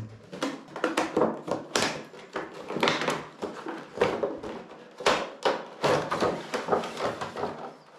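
Clear plastic packaging being handled and slid apart: a headphone box's plastic shell and sleeve crinkling and rustling in quick, irregular crackles and swishes, with light knocks.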